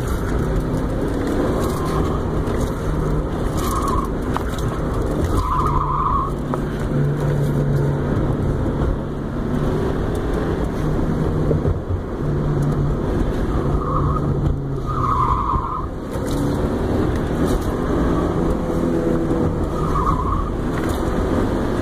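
Car engine running under hard driving through an autocross course, heard from inside the cabin. Its tires squeal briefly in about six short bursts as it corners through the cones.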